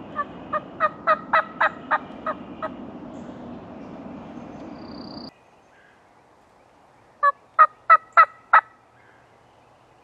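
Turkey yelping: a run of about nine short, evenly spaced yelps at roughly three a second, then after a pause a run of five louder ones. A steady background hiss cuts off abruptly about five seconds in.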